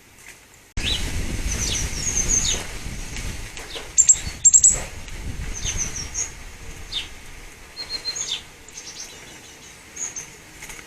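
Small garden birds chirping and calling repeatedly in short, high-pitched notes. For the first few seconds, wind buffets the microphone with a low rumble that starts suddenly, and a few sharp clicks come near the middle.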